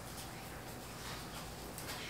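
Faint, irregular patter of a spice shaker being shaken, onion powder sprinkling onto raw potato wedges on a sheet pan.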